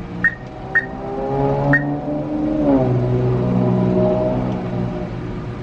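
Car engine accelerating as it pulls away, heard from inside the cabin. Its pitch climbs, drops as the automatic transmission shifts up about two and a half seconds in, then climbs again. A few short, sharp high ticks in the first two seconds.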